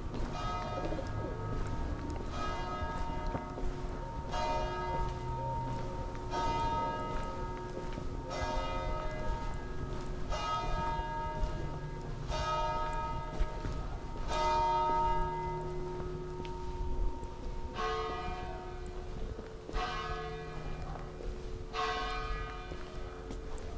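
Church bell tolling slowly, one stroke about every two seconds, each stroke ringing on and fading. About three-quarters of the way through, the strokes change to a bell of a different pitch.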